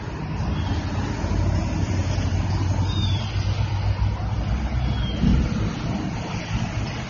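Steady rumble of road traffic on a busy highway. Three times a faint, short, high cry falls in pitch above it, the cry of a kitten.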